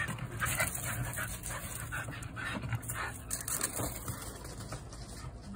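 Shiba Inu panting in quick, repeated breaths.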